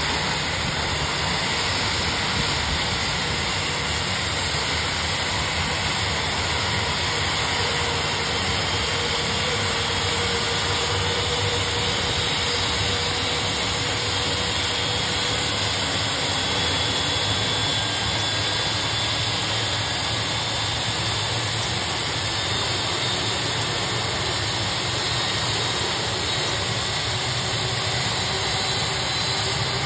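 IAE V2500 high-bypass turbofan on an Airbus A320 running steadily at the end of its start sequence, around the point where the pneumatic starter cuts out and the engine settles toward idle. A steady jet rush with faint whining tones that slowly glide in pitch.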